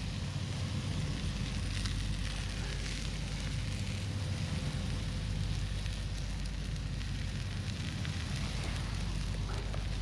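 Camp stove burning under a pan of frying greens: a steady rushing of the flame with faint crackles and sizzling.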